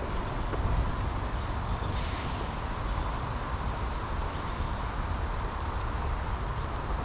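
Steady outdoor background noise with a low rumble, and a brief hiss about two seconds in.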